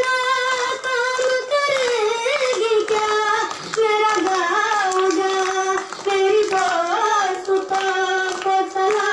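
A young boy singing solo and unaccompanied into a handheld microphone, in a high voice with long held notes and wavering melodic turns.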